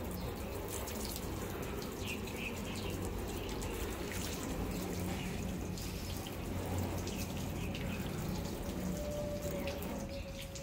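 Stream of water from a garden hose splashing onto a car's hood and running off the waxed paint. It is steady and eases off shortly before the end.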